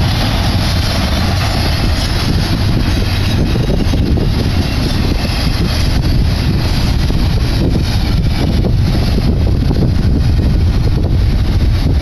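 Double-stack container train cars rolling past at speed: a loud, steady rumble of steel wheels on rail, with wind buffeting the microphone.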